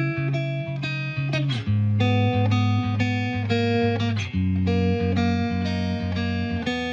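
Background music: a plucked guitar melody over a bass line with a steady beat.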